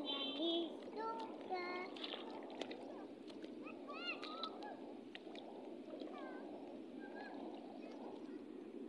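Steady rush of surf, with a small child's short high-pitched calls and squeals several times, the clearest near the start and about four seconds in.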